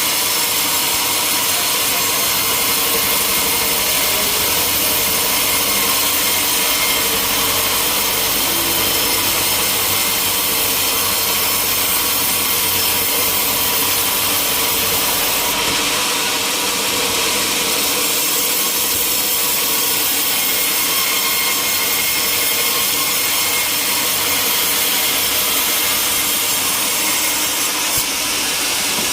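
Sawmill saw cutting through timber, a steady, continuous sawing sound with a high, dense rasp and steady tones over it.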